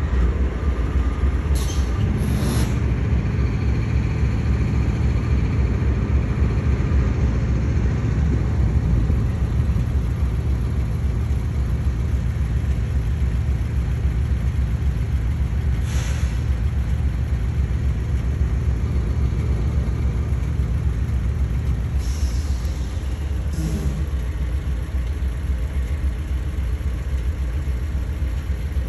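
Diesel freight locomotive rumbling steadily, with a few short air hisses: one about two seconds in, one about halfway through and a pair near the end.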